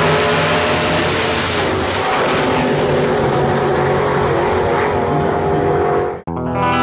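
Chevy Bel Air drag car's twin-turbocharged big-block Chevy engine running hard, heard from inside the cabin along with wind and road noise during a drag pass. The hiss eases off about a second and a half in, and the sound cuts off shortly before the end, where guitar music starts.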